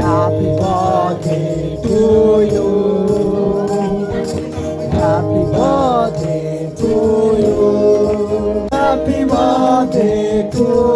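Live music with singing: a man sings a melody into a microphone over sustained guitar and keyboard accompaniment.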